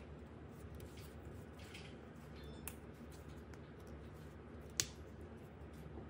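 Faint clicks and one sharp snap about five seconds in, from toy puzzle pieces or their packaging being handled, over a steady low hum.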